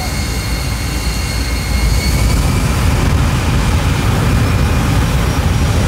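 Jet truck's jet engine running loud, with a steady high whine over a deep rumble. The whine fades and the overall loudness rises about two seconds in.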